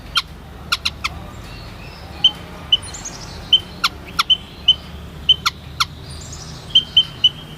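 White-headed munia (Lonchura maja) calling: many very short, high notes at irregular intervals. Some are sharp chips, others brief clear peeps, over a steady low background hum.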